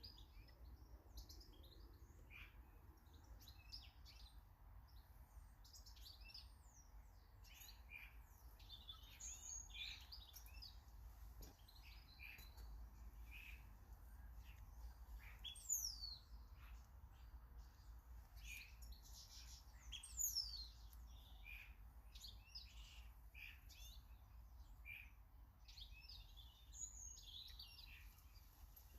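Small garden birds chirping and calling, with many short high calls overlapping throughout. Two sharp, high notes fall in pitch, one about halfway through and one a few seconds later.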